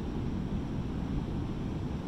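Pacific Ocean surf breaking on the beach, a steady low rumble, with wind buffeting the microphone.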